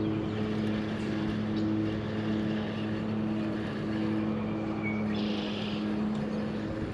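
A steady low motor drone with an even pitch, over a haze of wind noise, and a brief hiss about five seconds in.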